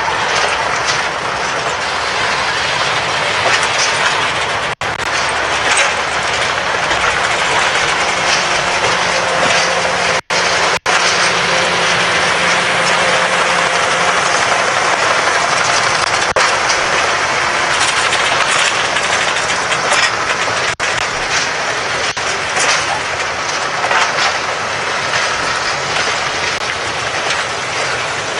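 Steel-wheeled passenger railroad cars rolling past at close range, a steady loud rumble and rattle of wheels on the rails. The sound cuts out for an instant a few times.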